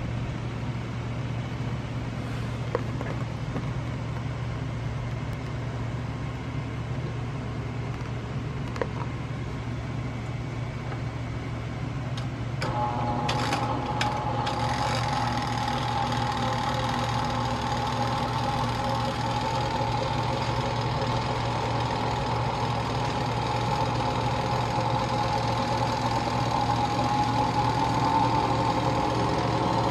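Clay Adams DYNAC benchtop centrifuge: a low steady hum, then about halfway through the motor starts and runs on with a steady whine as the timer dial clicks round. Near the end a tone in the whine slowly rises as the speed is turned up.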